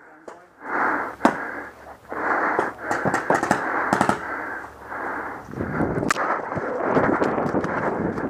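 Heavy, muffled breathing in uneven gusts, with three sharp pops of paintball markers firing.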